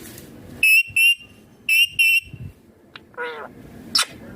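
Indian ringneck parrot giving short, shrill calls in two quick pairs, then a lower call that falls in pitch about three seconds in.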